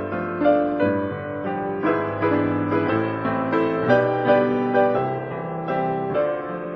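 Background music played on piano, a steady run of overlapping notes and chords.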